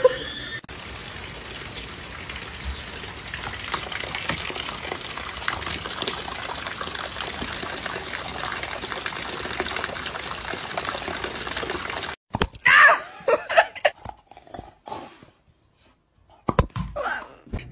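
Steady rain hiss that cuts off suddenly about two-thirds of the way through, followed by a few short, sharp sounds.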